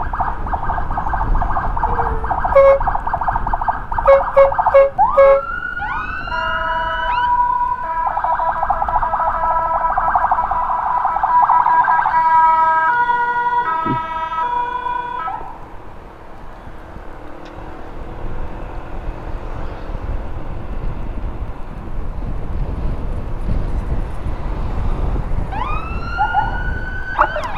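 Electronic siren sounded in bursts to clear traffic. It switches between a fast warble and stepped two-tone patterns, with a rising wail about six seconds in. It cuts off about fifteen seconds in, leaving road noise, and starts again with rising wails near the end.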